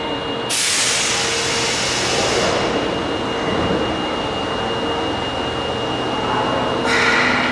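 Subway train at a station platform, with a steady high whine over its hum. About half a second in, a sudden loud hiss of air starts and fades over about two seconds. Near the end comes a brief, louder squeal.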